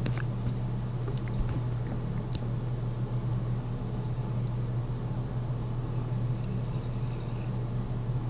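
Boat motor running with a steady low hum, with a few small clicks in the first couple of seconds.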